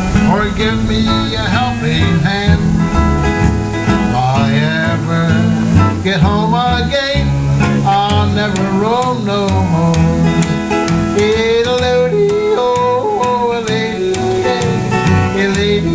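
Live acoustic country-blues: a man singing to his own acoustic guitar, with a plucked upright bass walking underneath.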